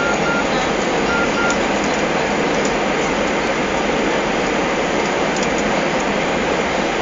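Airliner cabin noise: a steady rush of engines and airflow heard from inside the passenger cabin.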